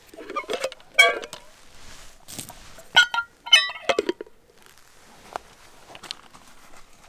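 A plastic pour-over coffee dripper and metal camp mug being handled: a few sharp clinks and knocks with a short ring, the loudest about a second in and a quick cluster around three to four seconds in, then soft handling.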